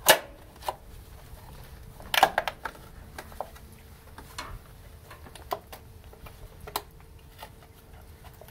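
Scattered sharp clicks and knocks as a propane regulator's plastic protective cover and its fittings are worked by hand. The loudest comes right at the start, with a rattling cluster about two seconds in and lighter clicks after.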